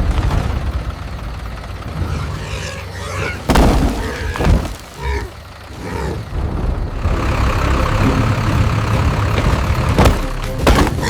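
Heavy construction machinery engines rumbling, with heavy crashing impacts about three and a half seconds in and again near the end.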